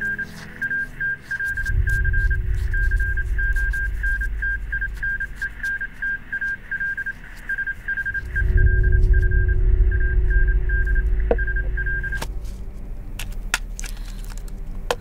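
Morse code radio signal: a steady high beep keyed on and off in short and long dots and dashes, an incoming coded message received on a radio set. It stops about twelve seconds in, over a low rumbling drone, with a few clicks near the end.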